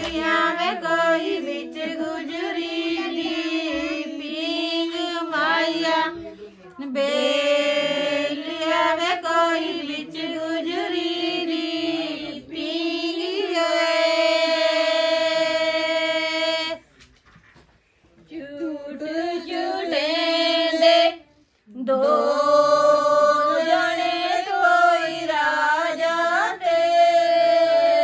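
Women singing a Punjabi suhag, a traditional wedding folk song, in long held phrases with a few short breaks between them.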